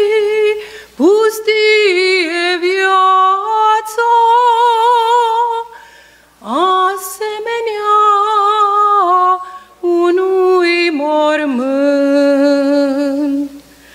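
A woman singing a Romanian Orthodox pricesnă unaccompanied, holding long notes with vibrato. She breaks off briefly for breath about every three to four seconds.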